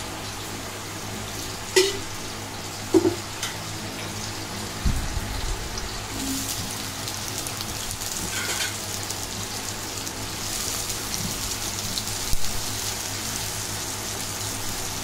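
Oil sizzling in a metal kadai as sliced onions fry in it. The sizzle grows louder about halfway through, with a few clicks and knocks of utensils against the pan.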